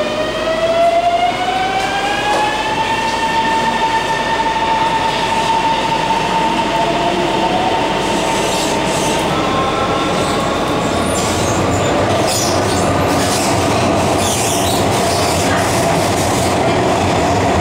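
Siemens IGBT-VVVF traction inverters of a CSR Puzhen AC18 metro train heard from inside the car as it accelerates: a whine with overtones rises in pitch over the first two or three seconds, then holds steady over the rumble of wheels on the track. About halfway through, a second, higher tone takes over, and scattered clicks and rattles come in during the second half.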